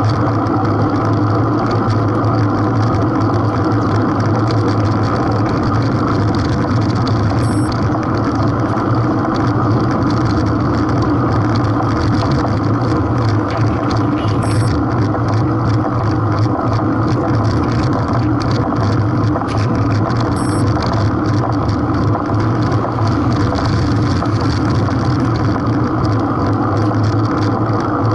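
Steady engine-like drone at an even pitch, with three short high beeps spaced about seven seconds apart.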